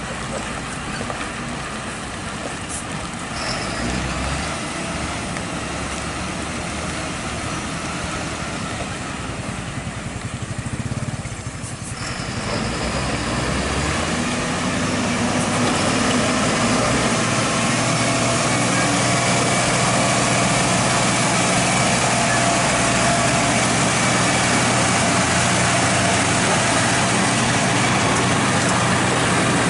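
Diesel engines of UD Quester tanker trucks running as they pull through mud. From about halfway a truck's engine grows louder as it comes close, then holds a steady note.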